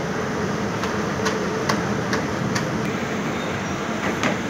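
Steady rumble of bakery machinery, from the dough-sheeter and the fired tandoor. Over it comes a run of light clicks about two a second in the first half, and a few more near the end.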